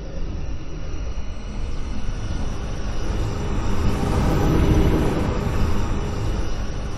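Designed rising fly-by whoosh sound effect: a rumbling rush that builds to a peak about two-thirds of the way through, then eases off slightly, like something large passing by.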